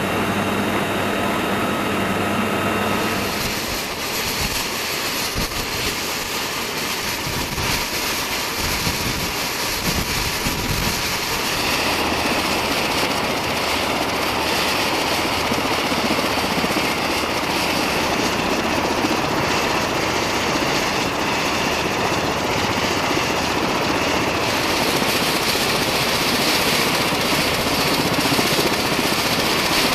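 UH-1Y Venom helicopter running on the ground, its turbine and rotor noise a steady, dense rush that doesn't change.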